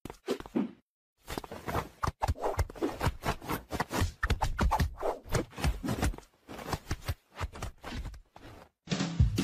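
Rapid, irregular clicking and knocking of a wooden whack-a-mole style cat toy as a kitten paws and bats at it, with a short pause about a second in.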